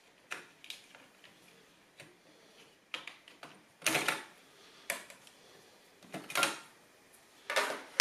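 Thin metal memory shield on a laptop motherboard being pried off its clips and lifted away: a handful of short clicks and scrapes, the loudest about four seconds in.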